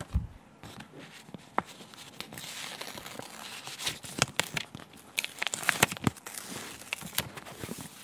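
A large sticker being peeled from its glossy backing sheet, with crackling and crinkling of the sheet, busiest in the middle of the peel. There is a soft low thump right at the start.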